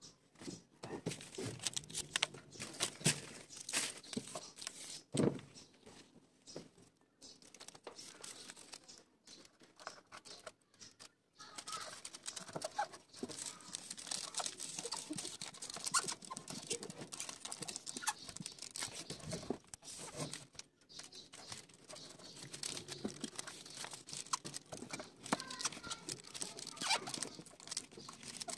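Self-adhesive aluminium foil crinkling and rustling as it is peeled from its paper backing and pressed and smoothed by hand onto roof tiles, with many scattered sharp crackles.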